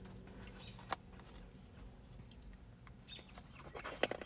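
Faint clicks and crinkles of a clear plastic takeout container being opened and handled, with a single tick about a second in and a busier run of clicks near the end.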